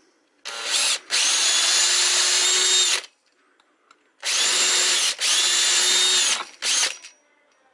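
Power drill boring holes through an aluminium motor mount plate. It runs in two bursts of about two and a half seconds each, with a pause between, then gives a short blip near the end; the motor whine rises as it spins up each time.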